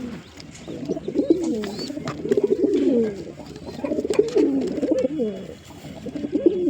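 Pigeons cooing: repeated low, rolling coo phrases about a second long, one after another with short gaps, with a few faint high chirps in between.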